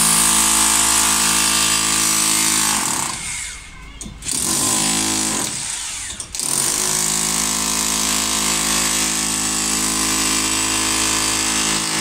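Ingco electric demolition hammer chiselling concrete, a steady rapid hammering. It stops about three seconds in and starts again a second later, stops briefly around six seconds, then runs on steadily.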